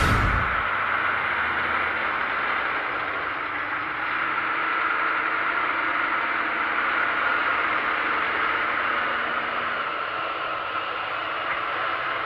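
John Deere 7530's six-cylinder diesel engine running steadily as the tractor pulls a seed drill, heard as an even, hissy drone with little bass.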